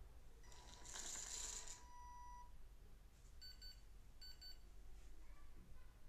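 Small DC motor whirring and rattling through its rack-and-pinion gearing as it slides the prototype door open, for about two seconds. It is followed by two short, high piezo buzzer beeps less than a second apart, signalling that the door is open.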